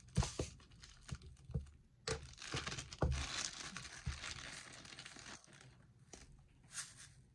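Clear plastic packaging crinkling and rustling as a bag of rhinestones is handled, with a few light clicks and taps in the first two seconds and a dense stretch of crinkling from about two seconds in.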